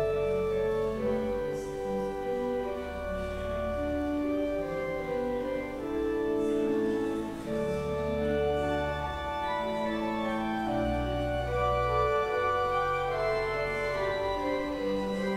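Organ playing slow, held chords that change every second or two over deep bass notes.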